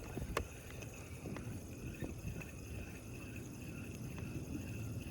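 Wind and water noise around a fishing kayak, with a few light clicks or knocks.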